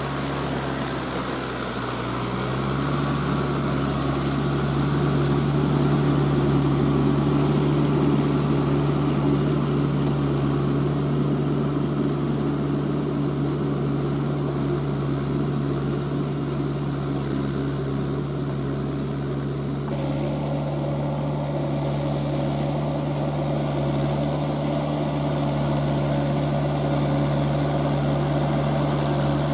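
Mahindra tractor's diesel engine running steadily under load while pulling its iron cage wheels through flooded paddy mud. Its note sags briefly about a second in, then recovers and holds.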